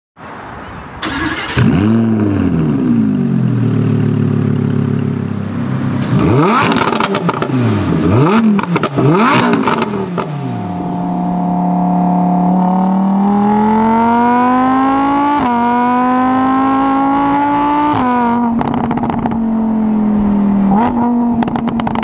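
Lamborghini Huracán LP610-4's 5.2-litre V10 blipped three times in quick succession, then held at a steady note. It then accelerates with the pitch climbing, dropping at two upshifts in the second half, before settling.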